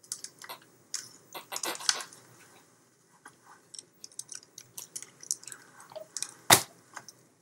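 Close handling noise: irregular clicks and crackles, thickest in the first two seconds, with one sharp knock about six and a half seconds in.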